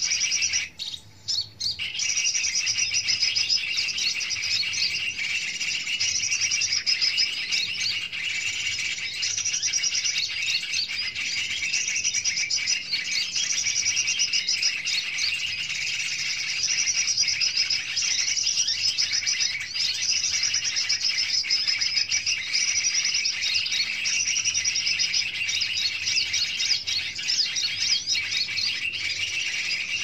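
Busy, continuous chirping and twittering of small birds, with a brief dip about a second in.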